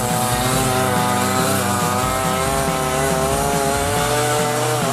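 Small two-stroke engine of a lightweight tracked snow vehicle running at high revs with a buzzing whine. Its pitch wavers slightly with the throttle, then drops briefly and picks up again near the end.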